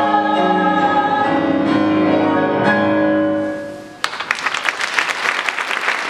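A choir with instrumental accompaniment holds a final chord that dies away over the third and fourth seconds. Audience applause breaks out suddenly about four seconds in.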